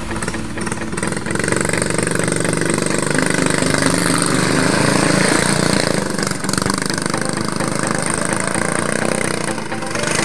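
Engine of a home-built reverse-trike go-kart running steadily as it is driven, with a brief drop in level about six seconds in.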